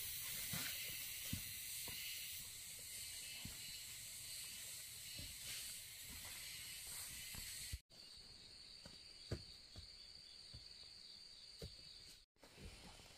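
Forest ambience: a steady high hiss of insects, with scattered soft clicks and crackles. The sound breaks off briefly about two-thirds of the way in and again near the end, and the hiss is quieter after the first break.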